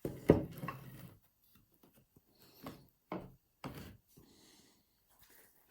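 Oak table-leg parts knocking against each other and on the bench as they are handled: a loud sharp knock just after the start with a clatter of smaller knocks, then three single knocks about half a second apart.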